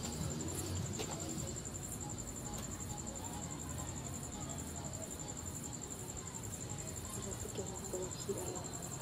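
Crickets trilling steadily at night: one continuous, high-pitched, finely pulsed trill.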